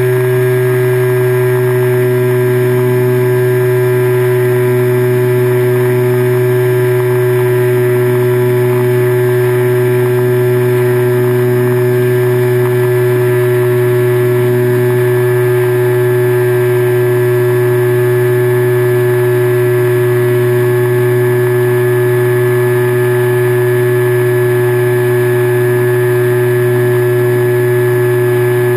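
Motor and propeller of a radio-controlled model airplane, heard from its onboard camera: a loud, steady drone that holds an even pitch throughout at constant throttle.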